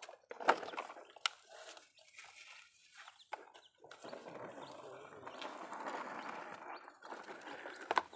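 Plastic toy excavators scraping and knocking as they dig wet dirt and drop it into a plastic toy dump truck, followed from about four seconds in by a steadier swishing as a hand works in the muddy water.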